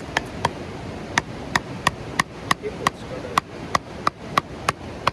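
Firewood being split with a hammer striking metal: a steady series of sharp taps, about three a second, each ringing briefly.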